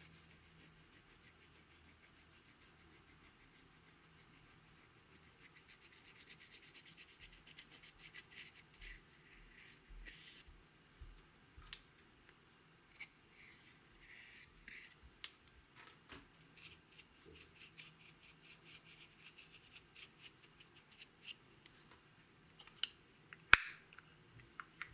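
Wooden stick scraping and crumbling pressed eyeshadow in a plastic compact: a quick run of even scratchy strokes, then scattered taps and scrapes. One sharp click near the end.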